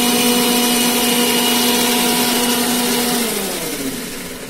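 Mixer grinder motor running at full speed, blending the cooked tamarind-jaggery water in its steel jar with a steady whine. About three seconds in it is switched off, and the whine falls in pitch and fades as the motor spins down.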